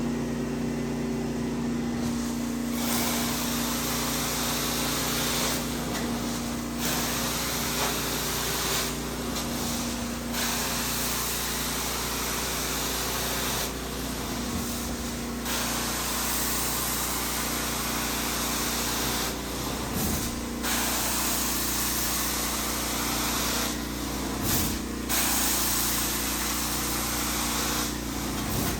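Hot water carpet extraction with a Vortex Lite portable extractor: its motors hum steadily while the wand sprays and sucks water through the carpet with a loud hiss. The hiss breaks off briefly about five times, between wand strokes.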